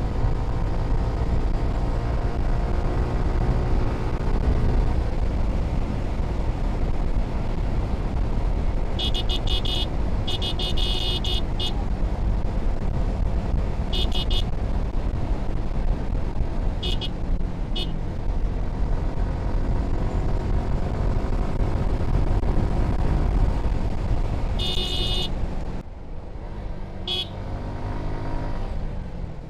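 Suzuki Gixxer SF 155's single-cylinder engine running on the stock exhaust while riding, its pitch rising and falling with throttle and gear changes, and easing off near the end. Vehicle horns beep several times, in short bursts and one longer run of beeps.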